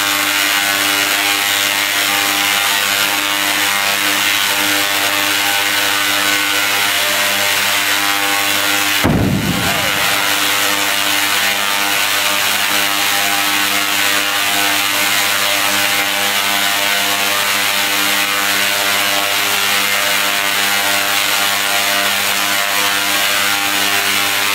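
Tesla coil discharging continuously: a loud, steady, buzzy crackle of sparks arcing through the air. About nine seconds in comes a single short bang as a hydrogen-filled balloon bursts in the sparks.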